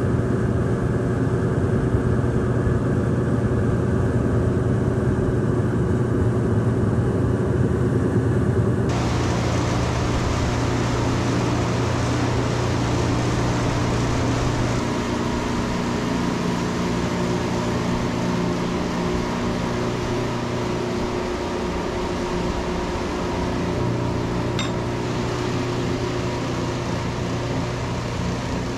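Nyle L200 Pro dehumidification kiln running, its circulation fans and blower giving a steady hum with several steady tones, with the heat on and the compressor off. About nine seconds in the sound turns brighter, with more rushing air.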